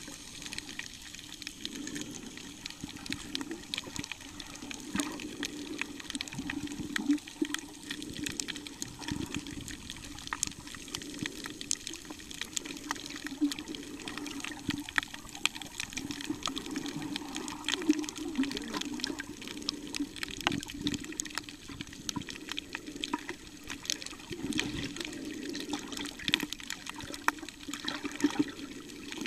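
Underwater sound picked up by a submerged camera: muffled, surging water noise with a constant crackle of small clicks.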